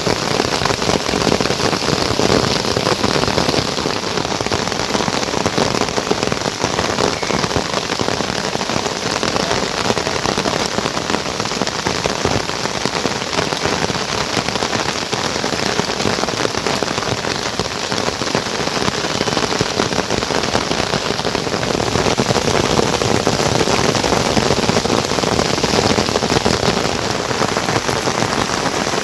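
Heavy rain falling steadily, countless drops striking surfaces in a dense hiss. It grows a little louder about three quarters of the way through.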